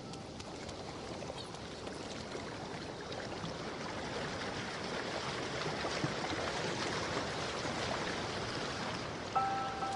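Steady rushing of running water, growing a little louder toward the middle.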